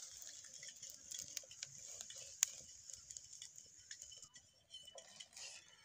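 Hot ghee sizzling faintly in a frying pan with many small crackles and pops as slices of bread are laid in to fry, and one sharper pop about two and a half seconds in.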